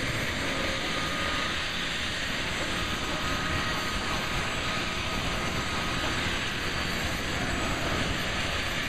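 Boeing CH-47 Chinook helicopter warming up on the ground, its twin turboshaft engines running and both tandem rotors turning: a steady, dense rush of noise with a faint high whine.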